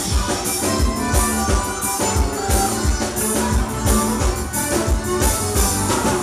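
Forró music playing an instrumental passage: a steady drum beat with tambourine-like strokes on top and no lead vocal.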